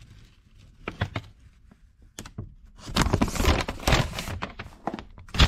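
A sheet of paper being handled and rustling, with a few light clicks early and a denser stretch of crinkling about three seconds in.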